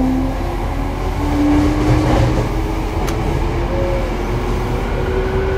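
Toei 5300 series subway train running, its Mitsubishi GTO-thyristor VVVF inverter and traction motors whining in several steady tones that step up and rise slightly, over a constant low rumble of wheels on rail. A single sharp click about three seconds in.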